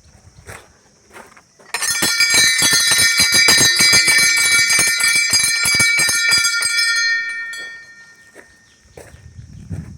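A metal bell rung rapidly with fast repeated strokes over a sustained ringing tone, starting about two seconds in and lasting about six seconds, then dying away.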